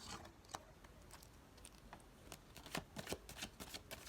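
Tarot cards being shuffled by hand: a few faint, scattered card clicks at first, then a quick run of snapping clicks from about two seconds in.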